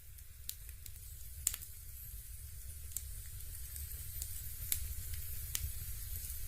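Fireplace crackling: sparse, irregular sharp pops and snaps over a faint hiss and a low steady hum.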